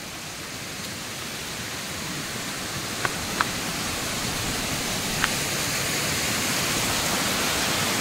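Waterfall and rock cascades rushing steadily, a dense wash of falling water that gradually grows louder. Three brief faint high blips come about three and five seconds in.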